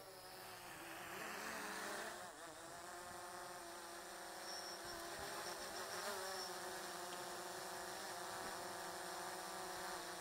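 Quadcopter drone (DJI Phantom 4) propellers buzzing, a multi-toned whine that wavers in pitch as the motors change speed. It fades up over the first couple of seconds as the drone comes in, then holds steady.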